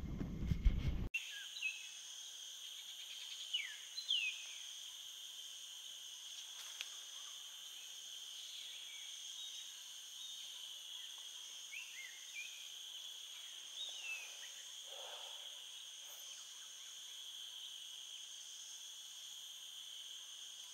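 Steady outdoor chorus of insects, several high buzzing bands held without a break, with a few short bird chirps over it, some dropping in pitch, about 3 to 4 seconds in and again around 12 and 14 seconds. In the first second a loud low rumble of handling noise cuts off abruptly.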